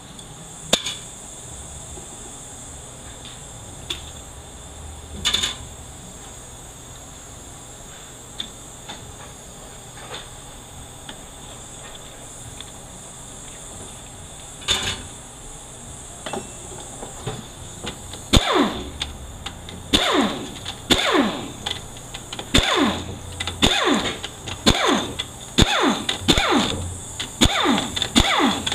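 Scattered knocks and clinks of hand tools and parts. About two-thirds of the way in, a small power tool starts spinning out bolts: a quick run of short whirs, roughly one a second, each falling in pitch.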